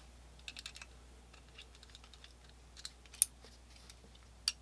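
Small, sparse metallic clicks and ticks of a screwdriver turning trigger guard screws into a Colt black-powder revolver's frame, with a sharper single click a little after three seconds in.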